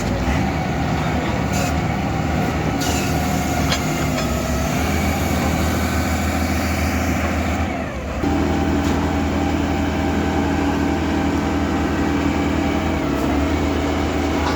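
A heavy diesel engine running steadily, with a brief dip a little past halfway before it picks up again.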